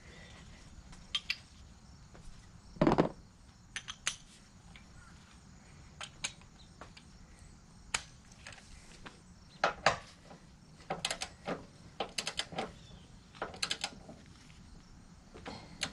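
Hand tools clinking and clicking on metal as a socket on a long extension is worked onto engine mount bolts, with a heavier knock about three seconds in and runs of quick clicks later on.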